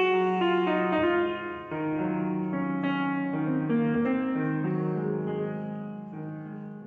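Instrumental background music: slow keyboard chords, piano-like, over a held bass note, fading out near the end.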